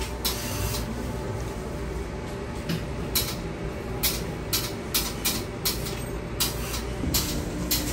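Steady hum of a garment workroom, with a run of short, sharp clicks and taps starting about three seconds in.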